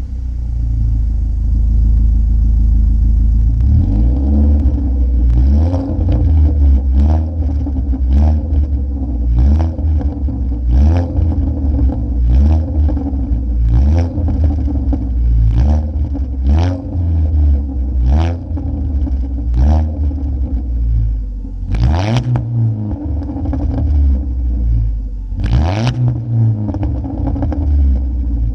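2015 Ford Focus SE's 2.0-litre four-cylinder engine, its muffler deleted, running steadily and then revved up and down over and over. Each time it comes off the throttle the exhaust gives a string of sharp crackles and pops, with two much louder bangs near the end.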